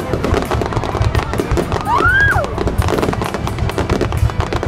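Fireworks going off in a dense, continuous barrage of bangs and crackles. A whistle glides up and then down about two seconds in.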